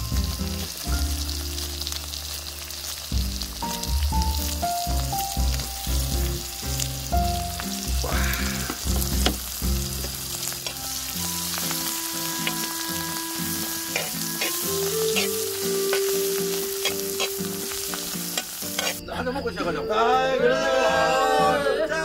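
Pork belly and kimchi sizzling on a hot grill pan, with clicks and scrapes as the food is stirred and turned with tongs, over quiet music. About three seconds before the end the sizzle gives way to music.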